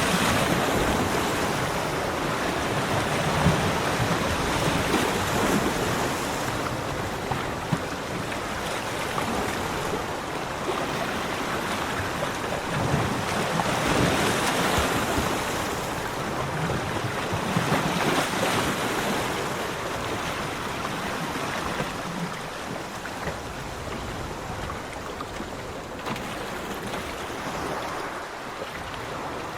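Sea waves washing onto a beach, a steady hiss of surf that swells and ebbs every few seconds as waves break and draw back.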